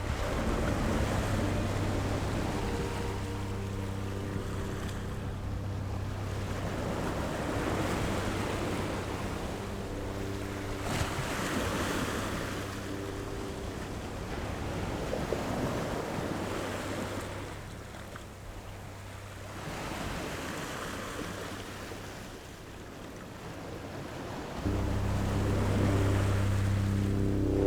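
Rushing noise that rises and falls in slow swells like surf, over a low, steady musical drone. The drone fades out in the middle and comes back louder near the end.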